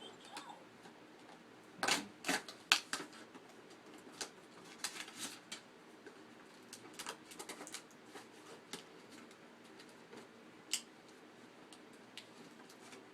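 Cardboard toy box and its packaging being opened by hand: irregular clicks, crinkles and tearing, busiest about two to three seconds in, with scattered clicks after and one sharp click later on.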